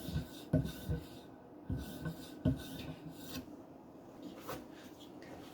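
Knife edge drawn in repeated short strokes across a hard polymer strop charged with 10-micron diamond emulsion, a dry scraping rub at each pass. The strokes come about two a second at first, then turn quieter and sparser after about three seconds.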